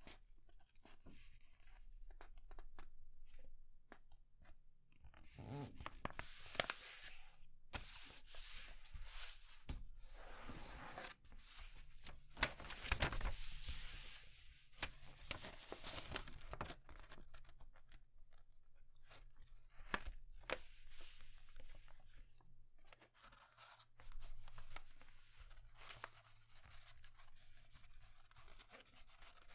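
A sheet of paper being folded by hand on a cutting mat: rustling, sliding and the scrape of fingers pressing creases flat, coming in uneven bursts that are busiest between about ten and sixteen seconds in.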